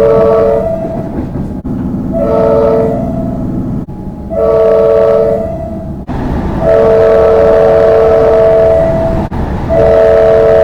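Comeng electric train's horn sounding a series of blasts, each several steady notes at once: the tail of one blast right at the start, two short blasts about two seconds apart, a long blast of about two and a half seconds, then another long blast starting near the end. A steady rumble from the train runs underneath.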